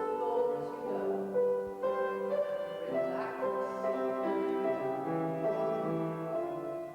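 Slow classical-style piano music playing held chords and notes that change about once a second.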